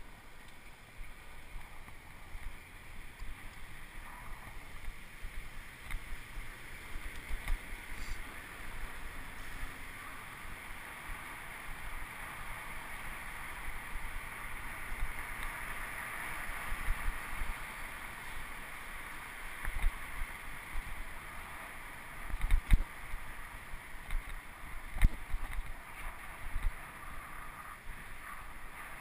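Wind rushing over the microphone of a camera on a moving bicycle, with a steady rush of road noise and a few sharper low thumps in the second half.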